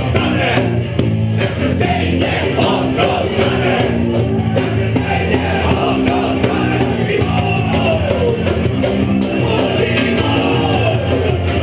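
Loud live folk-rock band playing: banjo, bass guitar and drum kit, with a voice singing over them.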